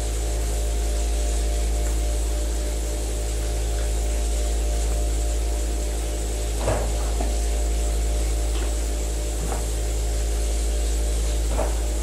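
Theraplate vibrating therapy platform running under a horse with a steady low hum, with a few brief knocks about two-thirds of the way through and near the end.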